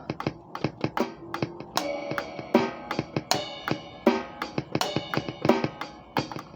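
Acoustic drum kit played freely, with fast, uneven drum strokes. From about two seconds in, cymbal crashes come roughly every second and ring on between the hits.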